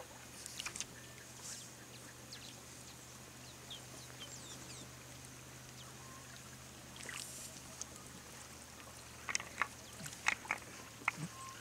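Quiet open-water marsh ambience while a dugout canoe is poled along, with a few faint bird chirps a few seconds in. Near the end comes a run of short, sharp clicks and drips from the pole and the water.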